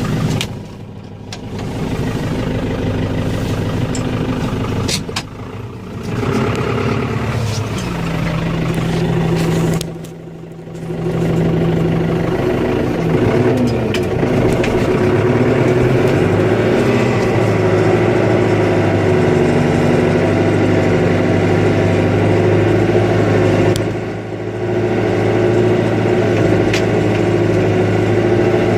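Snowplow vehicle's engine running, its revs rising and falling several times, with a few sharp knocks.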